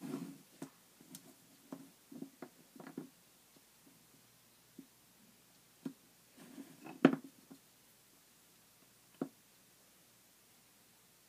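Small Iwako eraser pieces being picked up and set down by hand on a tray and a cloth-covered table: scattered soft taps and light handling noises, the loudest tap about seven seconds in.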